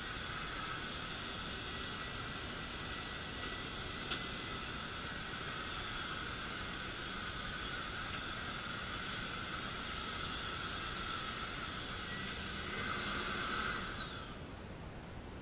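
Vacuum cleaner running steadily with a high motor whine over an airy rush, then switched off about 14 seconds in, the whine falling in pitch as the motor spins down.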